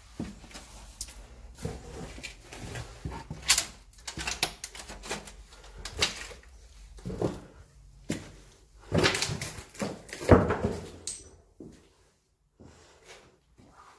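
Irregular scuffs, knocks and rustles of footsteps and handling in a small room, the loudest bunched a little after halfway, falling almost silent near the end.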